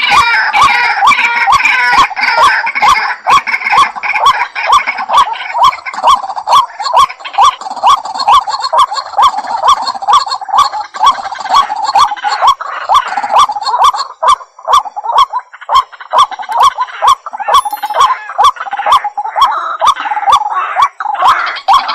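White-breasted waterhen calling: a long, even run of short repeated notes, about two a second, kept up without a break.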